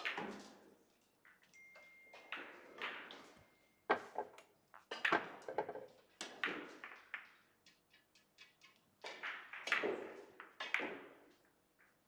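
Billiard balls clacking on neighbouring tables: a series of sharp knocks, each ringing on briefly in the echo of a large hall, some coming in quick pairs.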